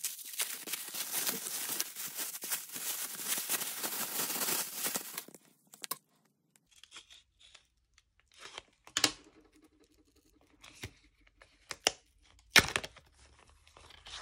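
Paper packaging torn open by hand: a dense crackling rip lasting about five seconds. After it, scattered rustles of paper and card being handled, with a couple of sharp taps.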